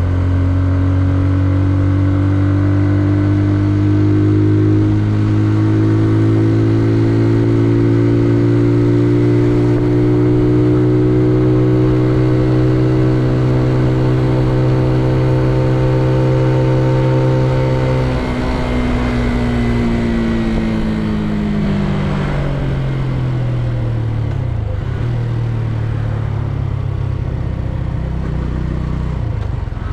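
Benelli Leoncino 125's single-cylinder four-stroke engine pulling under way, its note creeping slowly upward. About eighteen seconds in the throttle closes and the note falls away over several seconds as the bike slows, then settles at a lower steady pitch.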